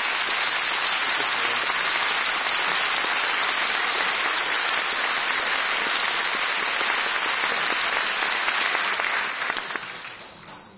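Audience applauding, loud, dense and steady, then dying away near the end.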